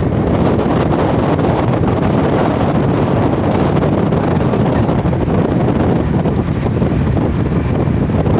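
Loud, steady rushing of wind buffeting the microphone, starting abruptly.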